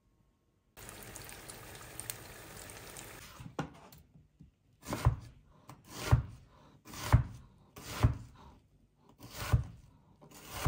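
A kitchen knife slicing through a halved onion onto a plastic cutting board: about six cuts roughly a second apart starting about five seconds in, each a short crunch ending in a knock on the board. Before the cuts, a steady hiss runs for about three seconds.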